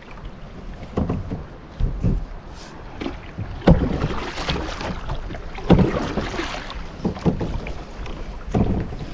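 Fishing kayak on the sea: water splashing and sloshing against the hull, with a handful of irregular knocks.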